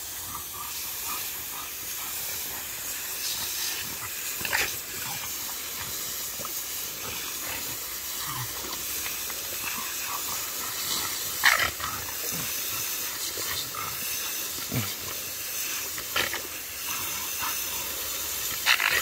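Garden hose nozzle spraying a steady, hissing stream of water onto dry straw and dirt. A French bulldog makes short vocal sounds a few times as it goes after the spray.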